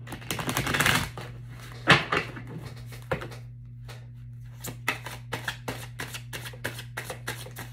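A deck of oracle cards being shuffled by hand. A quick flutter of card edges comes at the start, then a couple of sharp card snaps, and near the end a steady run of soft card taps, about three or four a second.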